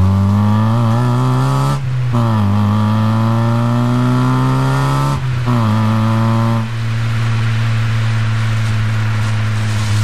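Exhaust of an Opel Corsa with a C20XE 2.0-litre 16-valve four-cylinder, accelerating through the gears: the revs climb, break off at an upshift about two seconds in, climb again, and shift again after about five seconds. Near seven seconds the throttle is eased and the engine settles to a steady cruise.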